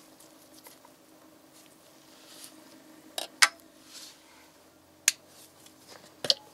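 Sharp metallic clicks and knocks from handling steel test-machine parts: a quick pair about three seconds in, another about five seconds in and one near the end, over a faint steady hum.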